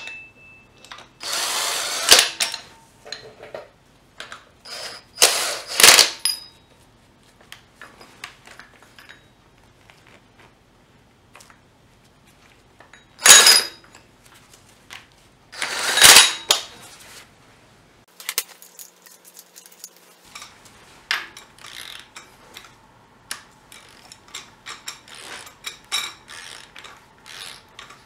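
Hand ratchet and socket tightening idler pulley bolts: several short bursts of rapid ratchet clicking, the two loudest past the middle, then lighter clinks and taps of tools near the end.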